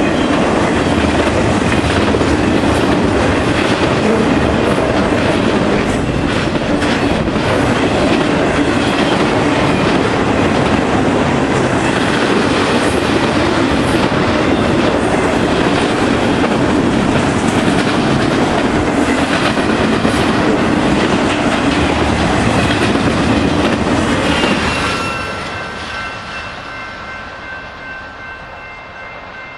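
Intermodal freight train of highway trailers on flatcars passing close by: a loud, steady rumble with the clickety-clack of wheels over the rail joints. About 25 seconds in, the last car goes by and the sound falls away, leaving a few faint steady high tones.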